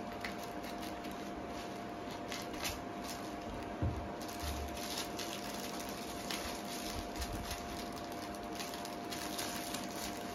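Plastic packaging crinkling and rustling in irregular snips and crackles as it is cut open with scissors and the contents pulled out, with a soft thump just before four seconds in. A faint steady hum runs underneath.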